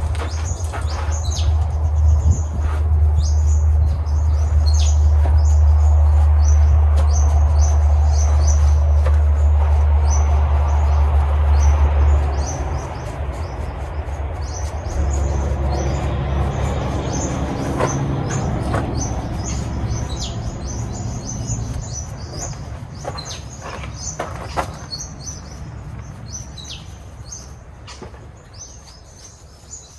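Cordless die grinder running as it carves wood, a loud low drone that stops about twelve seconds in, followed by a fainter hum that fades away. Birds chirp throughout.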